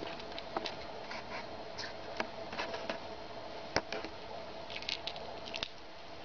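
A cat biting and chewing a small toy mouse held in its paws: irregular soft clicks and rustles, with a few sharper clicks, over a faint steady hum.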